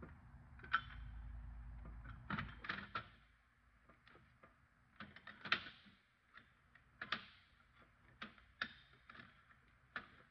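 Light clicks and knocks of metal parts and a welding magnet being moved and set down on a steel welding table, about a dozen spread unevenly, with a low rumble in the first two seconds.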